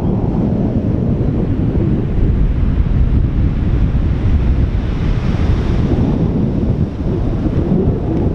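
Ocean surf washing on a beach under heavy wind buffeting the microphone, with a brighter rush of surf swelling up about five seconds in.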